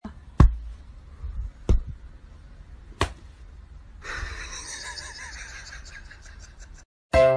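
Three sharp taps about a second and a quarter apart, over a low room rumble, then about three seconds of soft breathy hiss.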